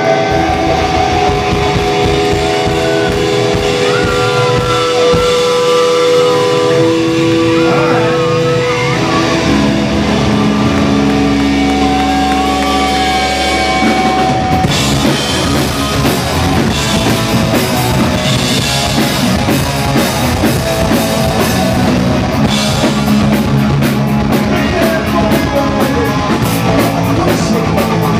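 Punk rock band playing live: electric guitar, bass guitar and drum kit. It opens with ringing held guitar notes, the bass comes in about ten seconds in, and the drums and full band crash in around fifteen seconds.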